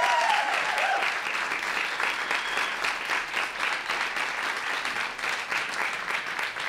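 A live theatre audience applauding steadily, with a couple of whoops in the first second.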